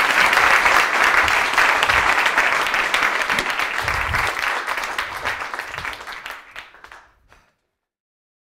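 Audience applauding at the end of a live stage show: dense clapping that thins and fades away near the end.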